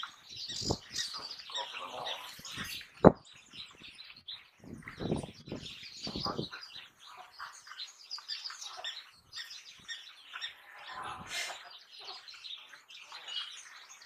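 African wild dogs twittering in many short, high-pitched chirps and squeaks while feeding at a carcass, with a single sharp knock about three seconds in.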